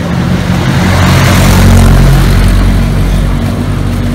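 A motor vehicle passing close by on the road: its engine drone and road noise swell to a peak about two seconds in and then fade.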